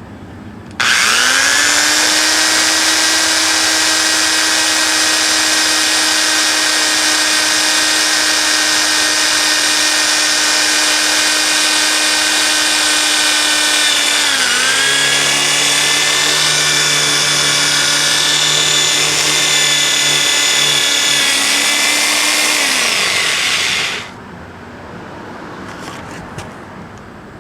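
Power drill boring through an old L-shaped drain line connector: the motor starts about a second in and runs at a steady high whine. About halfway through its pitch dips briefly and settles a little lower, then it winds down and stops a few seconds before the end.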